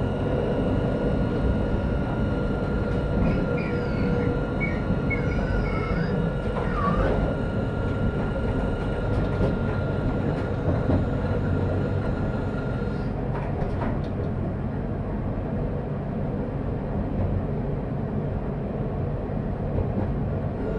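Tram running on street track, heard from inside the driver's cab: a steady rumble of wheels on rail with a constant whine from the drive. A few short squeals come between about three and seven seconds in, and a few clicks about thirteen to fourteen seconds in.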